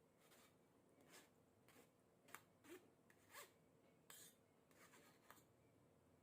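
Faint kitchen handling noises: about ten light clicks and short scrapes, spaced irregularly, the sharpest a little over two seconds in.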